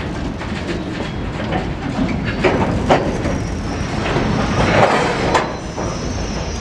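Open-top freight wagons rolling slowly along the track, steel wheels clacking and clanking over the rail joints. There are two sharp knocks about two and a half and three seconds in, and a louder burst of metallic wheel-on-rail noise around five seconds in.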